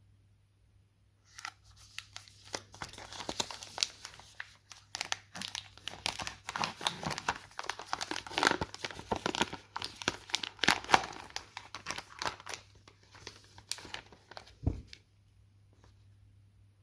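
Chocolate packaging being crinkled and torn open by hand. It starts about a second in, runs as a dense crackle for some thirteen seconds, and ends with a dull thump as something is set down.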